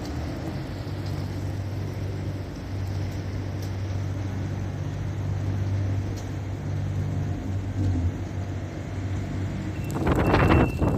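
Steady low rumble of a vehicle engine running in city street traffic, with some wind noise. Louder irregular noises start about a second before the end.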